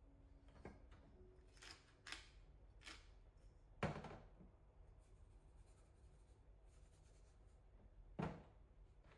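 Light clicks and knocks of a squeeze bottle and small condiment jars being picked up and set down on a kitchen counter. Several small ticks come in the first three seconds, the loudest knock about four seconds in and another near the end, with a faint scratchy noise between them.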